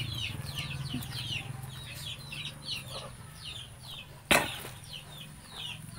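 Chicks peeping over and over, short high falling peeps several times a second. A single sharp knock comes about four seconds in.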